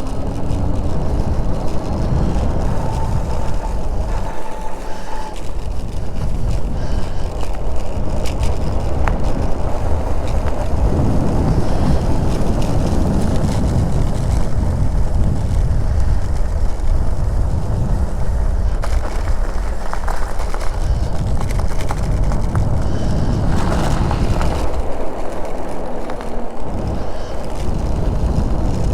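Wind buffeting the microphone on a moving e-bike: a loud, uneven low rumble that eases off briefly twice, with faint scattered clicks from the ride.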